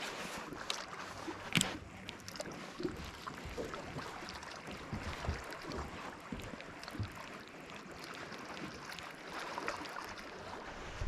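Wind buffeting the microphone over faint lapping water, with low rumbles and a few light clicks, the loudest about a second and a half in.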